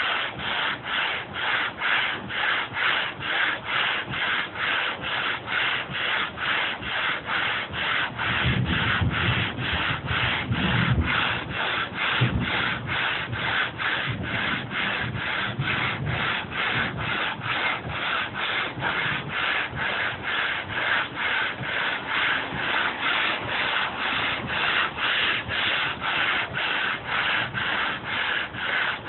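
Hand sanding a hardwood butcher-block tabletop with sandpaper on a sanding block, pushed back and forth in steady strokes about twice a second. This is the rasp of stripping the old stain and finish down to bare wood.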